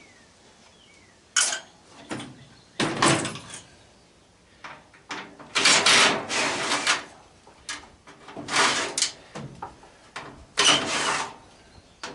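Sheet-metal panels of an AC condenser's casing being pried, slid and scraped apart in about five separate noisy bursts, the first starting sharply about a second and a half in.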